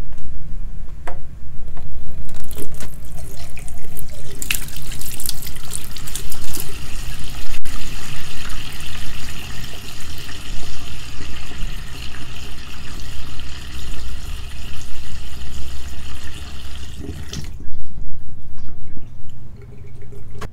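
Water running from a tap, building up a few seconds in and cutting off suddenly near the end, over a steady low hum.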